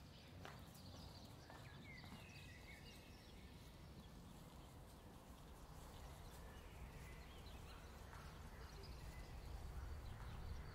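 Faint outdoor quiet: a low steady rumble with a few small birds chirping now and then.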